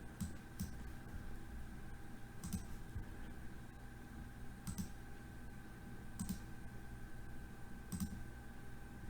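Computer mouse clicking, about six single clicks spaced a second or two apart, over a faint steady electrical hum.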